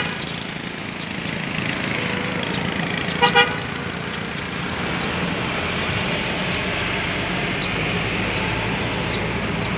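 Road traffic running steadily, with a vehicle horn giving two quick short toots about three seconds in.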